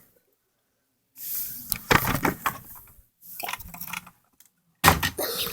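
Handling noise: rustling with light knocks and clatter in two short stretches, then a louder burst of rustling and clicks near the end, as things are moved about.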